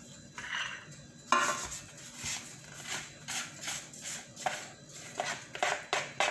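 A metal baking pan is set down with one sharp clatter about a second in, followed by a run of light clicks and knocks as a plastic mixing bowl is handled and tipped over the pan to pour in batter.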